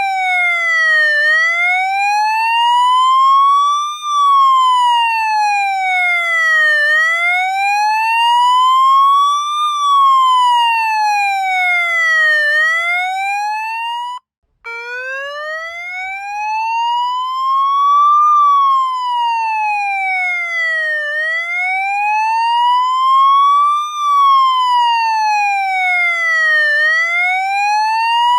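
Police siren in wail mode: one tone sliding slowly up and down, about one rise and fall every six seconds. About halfway through it cuts out for an instant and restarts at a lower pitch.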